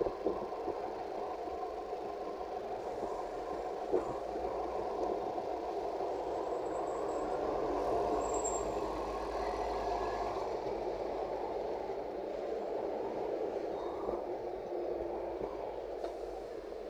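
Steady road traffic on a busy city street: cars and buses passing, with a city bus drawing up close near the end.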